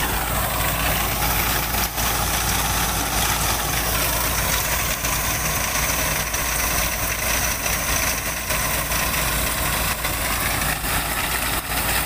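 Combine harvester running steadily under load as its unloading auger pours threshed wheat grain from the spout into a trailer, a dense even machine noise without pauses.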